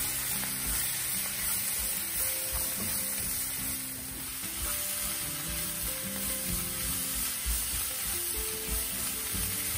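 A thick onion-tomato masala with ground spices sizzling in a nonstick kadai while it is stirred and sautéed with a wooden spatula, to cook off the raw smell of the spices. Soft background music plays under the sizzle.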